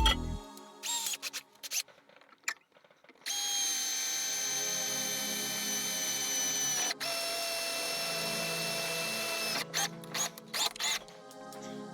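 Power drill running in two steady bursts of about three seconds each, a high whine, the second burst a little lower in pitch; a few clicks and knocks come before and after.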